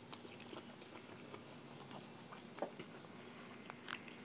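Faint chewing and mouth sounds of someone eating a freshly opened fig, with a few soft clicks, over a steady high-pitched drone of insects.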